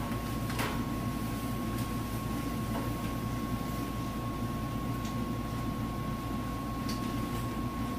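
A pressure washer's hose reel being hand-cranked, its thin high-pressure hose winding on with a few faint light clicks and knocks, over a steady low room hum and a faint steady high tone.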